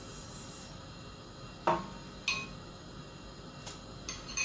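A spoon clinking on cookware while beans are dished up: a sharp ringing clink about a second and a half in, a second click half a second later, and two lighter clicks near the end.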